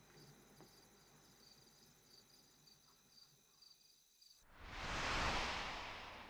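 Crickets chirping in a steady, pulsing trill over faint night ambience. About four seconds in, the trill cuts off and a loud transition whoosh of noise swells up and then slowly fades.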